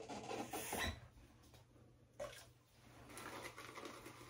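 A little water splashed onto shaving soap in a 3D-printed plastic lather bowl, then a shaving brush working the soap into lather: a soft, wet churning that runs on quietly from about halfway through.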